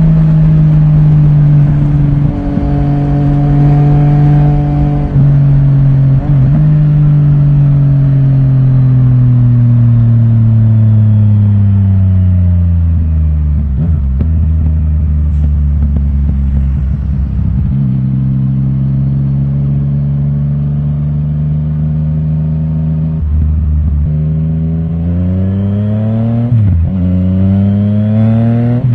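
Yamaha Tracer 900 GT's 847 cc inline-three through an Akrapovic titanium exhaust with the dB killer removed, under way on the road. The revs hold steady at first, then fall slowly to a low steady cruise. Near the end they rise again in two pulls with a brief drop between them, a gear change.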